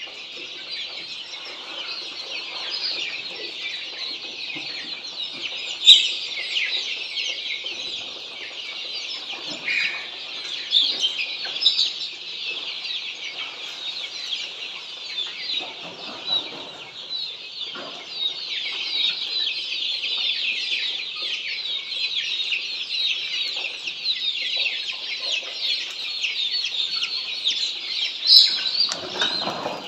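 A large flock of Australorp chicks peeping all at once, a dense, continuous high-pitched chatter, with a couple of brief louder knocks, the loudest near the end.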